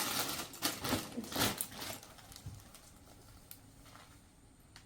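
Rustling and crinkling as a saree and its wrapping are handled, busy in the first two seconds and then dying away to a quiet room.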